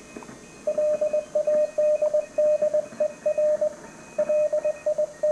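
Morse code (CW) heard as a single steady tone keyed on and off in dots and dashes over faint radio hiss. The keying starts under a second in and pauses briefly near four seconds.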